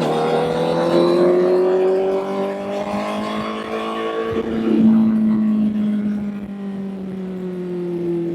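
Honda CBR1000 inline-four motorcycle engine under way: the revs climb steadily for about four and a half seconds, the note changes abruptly as a gear is shifted, then it holds and slowly eases off.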